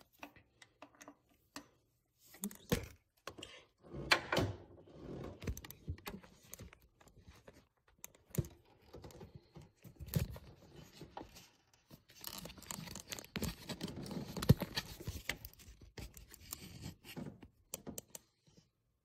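Hand-tool work on a water pump pulley: a ratchet turning out the pulley bolts, with irregular clicks, knocks and scraping of metal parts being handled as the pulley comes off.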